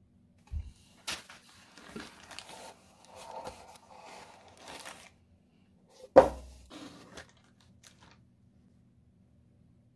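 Cardboard box flaps being opened and a plastic-bagged case being lifted out: clicks and crinkly rustling of cardboard and plastic, with one sharp knock about six seconds in as the loudest sound.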